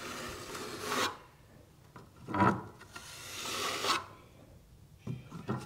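Steel plastering trowel scraping wet Easi-Fill filler across a wall in a few strokes, feathering the patch out to its edges.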